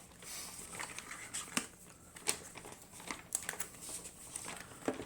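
Packaging crinkling and rustling, with scattered small clicks and taps, as the contents of a beauty subscription bag are handled. The sound is faint.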